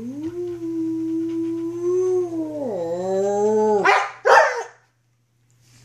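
A long howl, held at one pitch and then dropping lower for its last second, followed by two loud barks from a young wolfdog.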